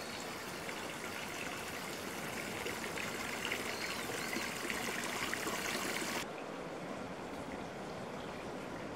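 Water running and trickling steadily, a continuous rushing hiss. About six seconds in the higher part of the hiss drops away abruptly and the sound carries on a little softer.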